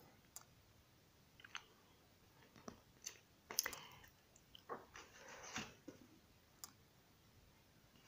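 Faint paper rustles and soft clicks as the pages of a paperback colouring book are turned and the book is handled on a wooden table, with a cluster of rustling in the middle.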